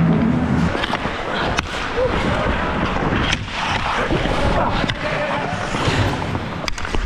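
Ice hockey skates scraping and carving on rink ice, with a few sharp clacks, around a second and a half in and again near the end.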